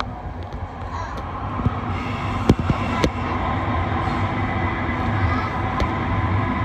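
Interior of a British Rail Class 318 electric multiple unit running at speed: a steady rumble with a faint steady whine, and two sharp knocks from the wheels over rail joints about two and a half and three seconds in. The running gets slightly louder as the train enters the tunnel.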